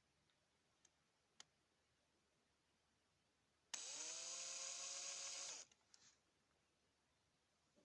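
Small electric power tool, such as a drill or rotary tool, spinning up quickly and running for about two seconds before stopping. A few faint clicks come before it.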